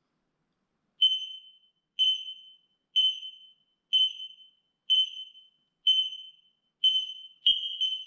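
X-Sense wireless smoke alarm in test mode, sounding a high, loud beep about once a second. Near the end the interlinked alarms start sounding too, adding beeps out of step with the first.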